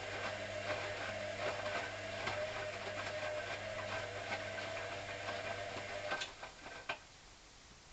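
Hoover CA232 washing machine running: a steady motor hum with frequent light knocks, which cuts off about six seconds in, followed by two sharp clicks.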